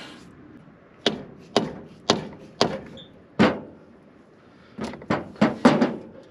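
Hammer blows on the cast-iron cylinder head of a Chevy stovebolt six, tapping it to break it loose from the rusted block: five sharp metallic strikes about half a second apart, then after a short pause a quicker cluster of four knocks near the end.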